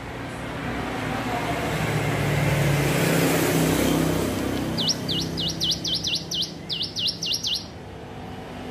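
Ciblek gunung (a prinia) singing a rapid run of about a dozen sharp, high, swooping notes, starting about five seconds in and lasting nearly three seconds. Before the song, a broad background noise swells and then fades.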